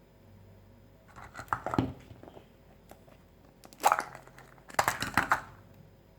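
Wrapping being crinkled and torn open in three short crackly bursts.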